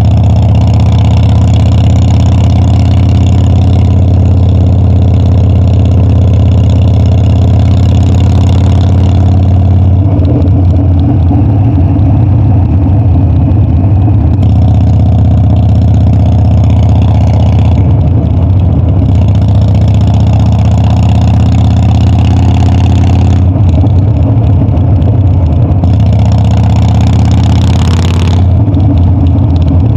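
Harley-Davidson Dyna's V-twin engine running loud and steady under way. The note changes with the throttle about a third of the way in, and the revs rise briefly near the end.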